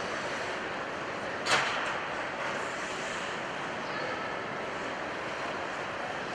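Steady, echoing ice-arena room noise, with one sharp loud knock about a second and a half in that rings out briefly in the rink.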